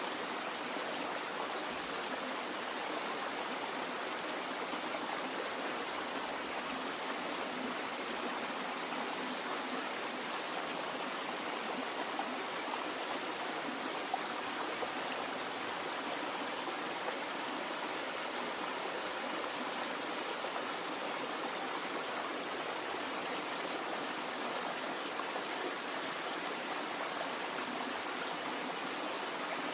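Flowing water running steadily: an even, unbroken rush with no pauses.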